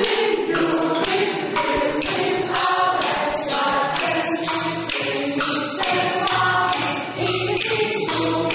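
A group singing together while striking short wooden sticks against long bamboo poles in a steady beat, about two strokes a second, with a tambourine jingling along.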